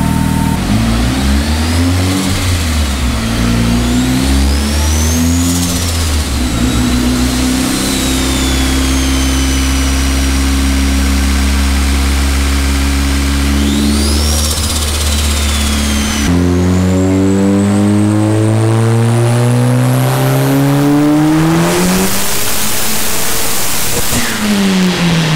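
Turbocharged SR20DET four-cylinder making a dyno pull. It holds a steady speed at first, then winds up under full load for about six seconds with a high turbo whine climbing with it. A burst of hiss comes near the top, and the revs fall away at the end.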